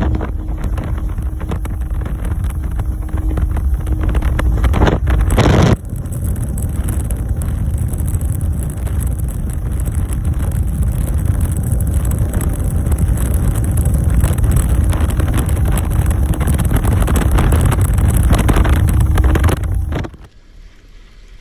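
Bass boat running at speed across open lake water: the outboard motor drones under heavy wind buffeting on the microphone, and it drops away abruptly near the end.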